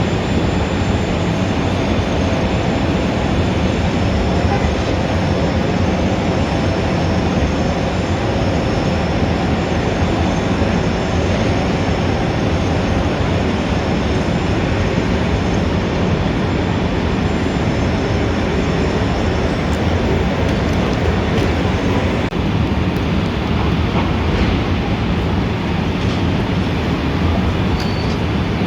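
Steady, dense city traffic rumble: a continuous wash of engine and road noise with a faint steady hum and no distinct single events.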